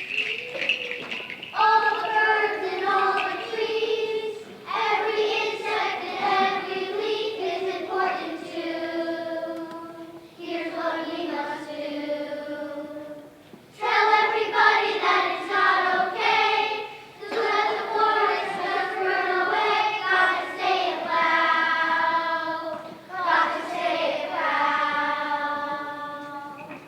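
A choir of young children singing together in phrases of a few seconds with held notes, pausing briefly between lines.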